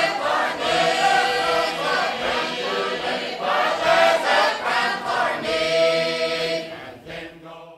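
A choir of voices singing together, fading out near the end.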